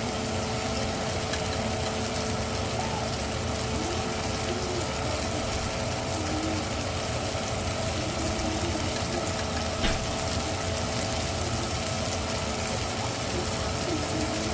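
Steak searing in a skillet, a steady sizzle over a constant hum, with one small click about ten seconds in.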